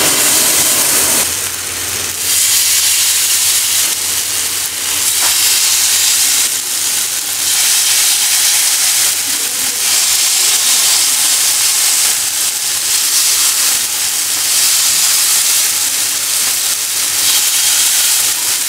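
Marinated chicken pieces sizzling hard on a hot, lightly oiled grill pan over a high flame. The hiss swells and eases in waves as more pieces are laid into the pan.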